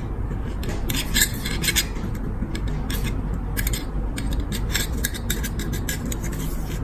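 Repeated short scraping and rubbing strokes from hand work on a lighter's parts, in clusters, over a steady low background rumble.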